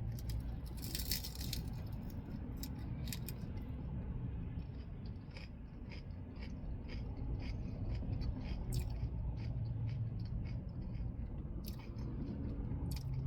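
Close-up chewing of a lettuce taco with mushrooms: a string of small crisp clicks and crunches, over a steady low rumble.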